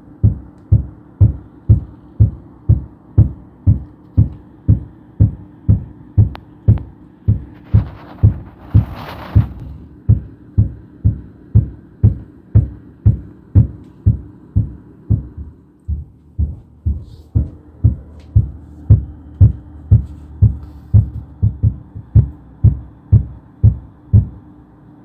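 Steady, heavy hammering on a hardwood floor overhead, heard through the ceiling as dull thuds about two a second, with a brief lull in force partway through. The banging stops shortly before the end.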